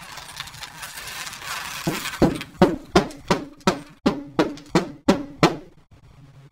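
Drum hits, about ten evenly spaced at roughly three a second, each with a short ringing tone, after a couple of seconds of a rough hissing rattle.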